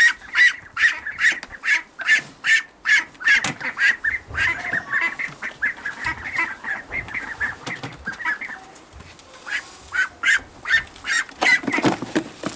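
Welsh Harlequin ducklings giving rapid, repeated short high peeping calls, thinning out for a few seconds midway and picking up again near the end.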